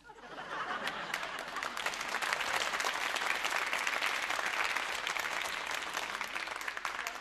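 Studio audience applauding. The clapping swells over the first couple of seconds, holds, and thins out near the end.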